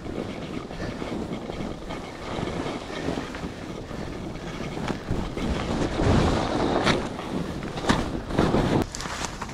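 Backcountry skis sliding and carving over snow on a downhill run, with wind rushing over the camera's microphone. The hiss swells louder twice, about six and eight seconds in, with a few sharp clicks among the loudest moments.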